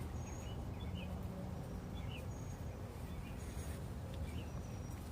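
Faint, scattered bird chirps, short high notes several times over a low steady background hum.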